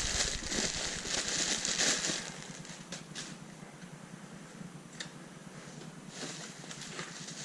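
Plastic packaging crinkling and rustling as parts are unpacked, fading after about two seconds into quieter handling with a couple of sharp clicks.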